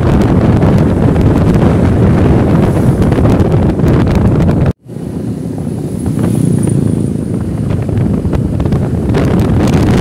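Wind buffeting the microphone of a moving motor scooter, with the ride's road and engine noise underneath. The sound cuts out for an instant a little before the middle, then comes back slightly quieter.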